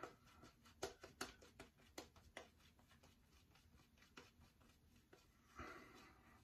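Faint crackle of a RazoRock Switch double-edge safety razor with a Derby Extra blade cutting through lathered stubble: many short scratchy strokes, with a louder, longer rasp near the end.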